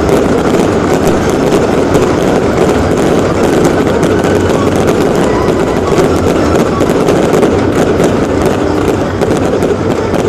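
Aerial fireworks going off in quick succession: a loud, continuous mass of bangs and crackling with no break.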